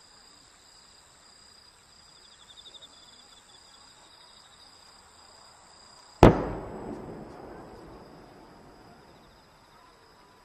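An aerial firework shell is fired from its mortar: one sharp bang about six seconds in, echoing and fading away over the next two seconds.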